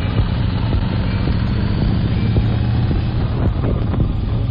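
Yamaha XV1900 Midnight Star's V-twin engine running steadily while riding, a constant low drone under wind rush on the microphone.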